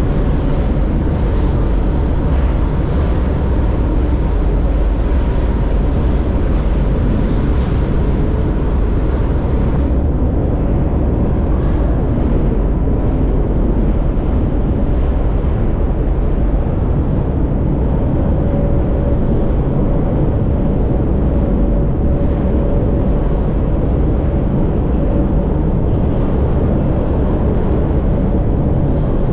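Steady rumble and rattle of a moving freight train, heard from on board an open freight car. The high hiss thins out about ten seconds in.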